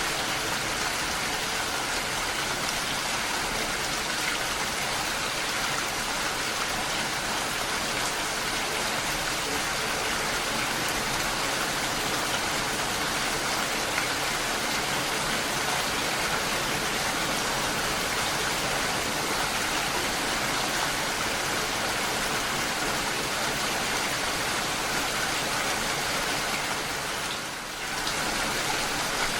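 Steady rain falling, a dense even hiss of drops, with a brief dip in level about two seconds before the end.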